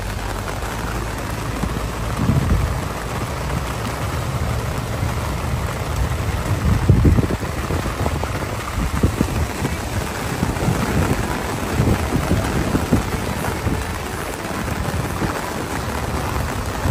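Steady rain falling, a continuous hiss, with low rumbling thuds now and then.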